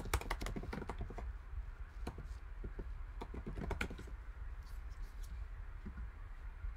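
Typing on a computer keyboard: a quick run of key clicks for about four seconds, then a few scattered clicks, over a low steady hum.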